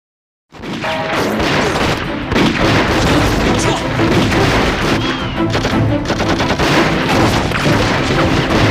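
Silence, then about half a second in a loud battle soundtrack starts: rapid gunfire and explosions over dramatic music.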